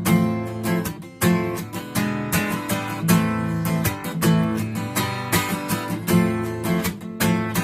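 Acoustic guitar strummed in a steady rhythm, chord after chord: the instrumental intro of a song before the singing begins.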